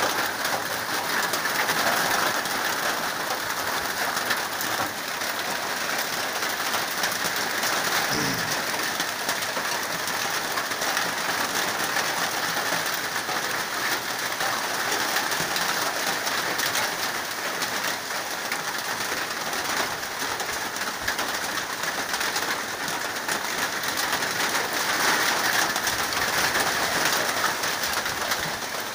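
Steady rain falling, pattering on a corrugated metal roof overhead.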